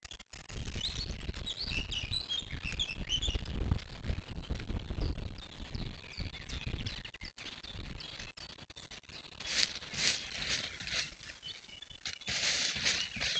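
Roe buck's footsteps rustling in dry leaf litter, with small birds chirping during the first few seconds. Louder bursts of rustling come near the end.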